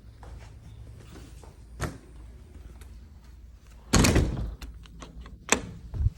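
A few sharp knocks and one heavy thud about four seconds in, the loudest sound, with another sharp knock near the end.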